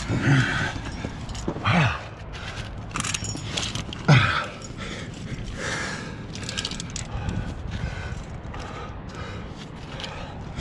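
A climber's heavy breathing with three short grunts of effort, each falling in pitch; the last, about four seconds in, is the loudest. Between them come scuffs and scrapes of hands and climbing shoes jamming in a granite crack.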